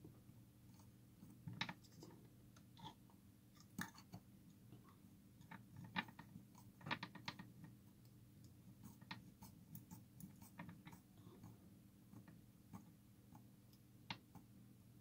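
Faint, irregular small clicks and taps, a few of them in quick clusters, over a low steady hum.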